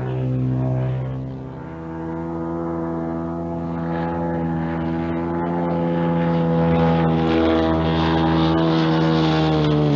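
The engine and 40-inch propeller of a giant radio-controlled Pitts Special biplane (521 cc, 45 horsepower) drone in flight. The pitch shifts about a second and a half in, then holds steady while the sound grows louder.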